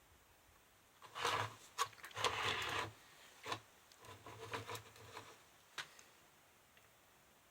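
Short bouts of rubbing and scraping with a few sharp clicks, from hands working the circuit board and tools on the bench.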